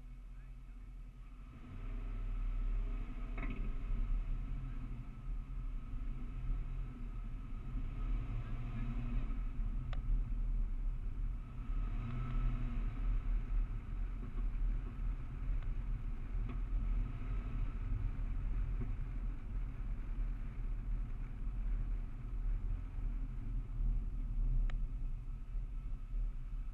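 Car driving, heard from a hood-mounted camera: a low rumble of engine and road noise that grows louder about two seconds in as the car gets moving, then runs on with an uneven, fluttering level.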